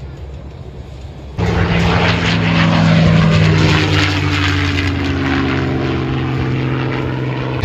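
Propeller warbird engines heard at a distance, then, about a second and a half in, a sudden much louder P-51 Mustang's V-12 engine running as it passes low, its pitch falling slightly as it goes by.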